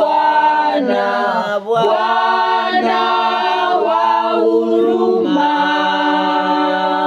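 Group of voices singing a Swahili gospel song unaccompanied, in harmony. About five seconds in they settle on a long held final chord.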